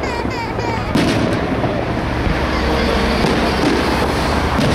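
Fireworks display: a sharp bang about a second in, over a steady background of noise. A run of short falling whistles at the start.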